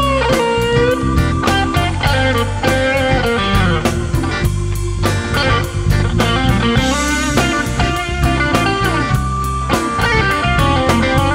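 Electric blues band playing an instrumental break: a lead electric guitar line full of bent notes over a steady drum beat and bass.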